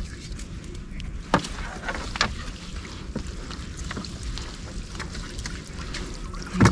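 Water sloshing and dripping with a steady low rumble, and a few sharp knocks and splashes as a gill net is hauled in by hand; the two loudest knocks come about a second and a half and about two seconds in.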